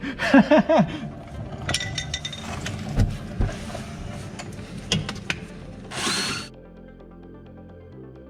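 Clicks and clatter of hand tools on metal during suspension work, with a brief hiss about six seconds in; background music comes in shortly after and carries on.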